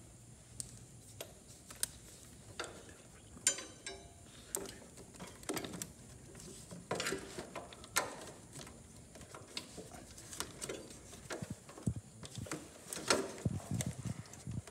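Hand tools working the screws of a mower's starter solenoid under a steel frame rail: scattered metal clicks, knocks and handling noise, with a short run of rapid ticks about three and a half seconds in.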